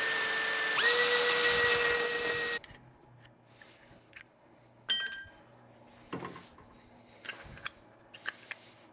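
Power drill boring through an aluminium bracket held in a wooden jig: a steady whine that steps up in pitch about a second in and stops after about two and a half seconds. Then quiet handling knocks as the bracket comes out of the jig, with a short metallic clink about five seconds in.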